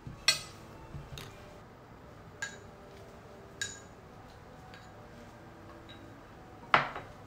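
Tableware clinking on a wooden table: about six sharp, ringing clinks of plates, bowls and utensils, the loudest about a quarter second in and another near the end.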